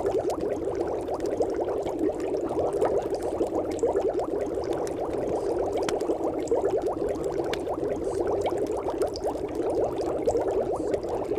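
Steady, dense bubbling crackle, like liquid bubbling or boiling, made of countless tiny pops in a muffled mid-range band and running on without a break.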